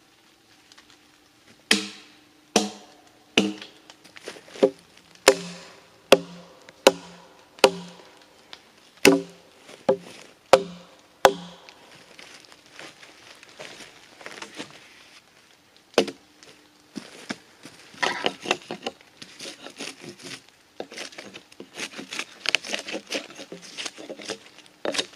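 Hatchet chopping into a pine log: a run of about a dozen sharp strikes roughly two-thirds of a second apart, each with a short ringing tone. Then come softer scraping and, from the middle on, quick light chops close together as the hatchet hews along the log.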